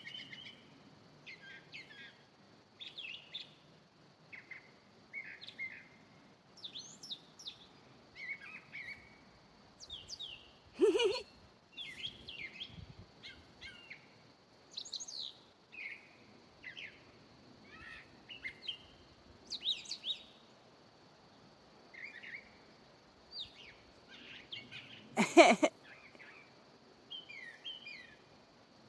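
A songbird singing in a tree, a long string of short, varied chirping phrases repeated every second or so, over a faint steady high hum. Two loud sharp sounds stand out, about a third of the way in and again near the end, the second the loudest.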